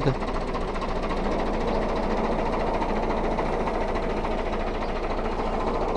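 375 tractor's diesel engine running steadily with a constant low hum.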